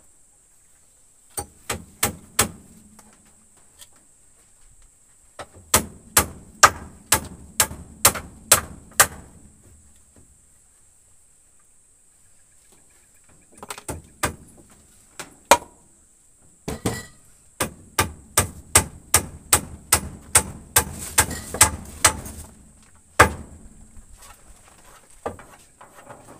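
Hammering on wood: runs of sharp hammer blows, about three a second, in several bursts with pauses between.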